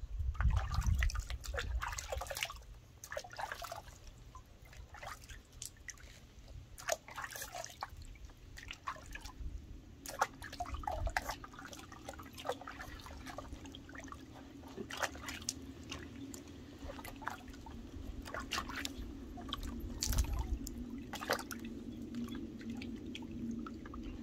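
Water splashing and dripping in a plastic tub as a puppy is washed by hand: scattered small splashes and trickles, none regular. A low steady hum comes in about nine seconds in and carries on under the splashing.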